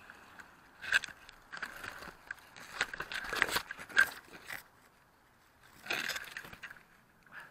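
Shrub leaves and twigs scraping and crackling against a small onboard camera as it is moved through the branches, in irregular bursts with a louder cluster about three to four seconds in and another near six seconds.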